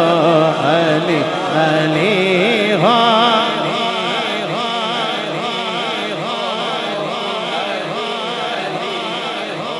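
A male reciter singing a long, wavering line of a devotional manqabat (chant to Ali) into a microphone; about three and a half seconds in, a crowd of men joins in chanting together, many voices overlapping.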